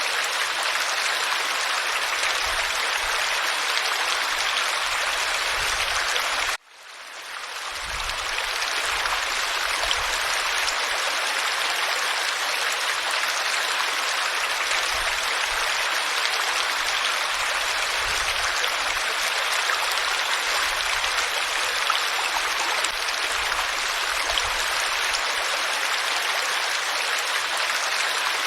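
Flowing water, a steady even rush. About six and a half seconds in it cuts out suddenly and fades back in over a second or two.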